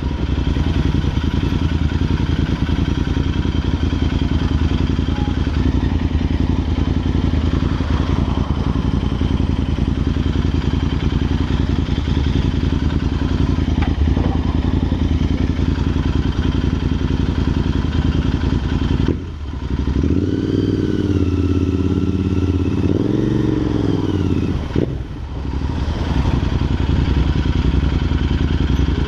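Royal Enfield INT650's 648 cc parallel-twin running through aftermarket Red Rooster exhausts on the move, with wind on the microphone. The exhaust note drops out briefly twice, about two-thirds in and near the end, with the revs rising and falling in between.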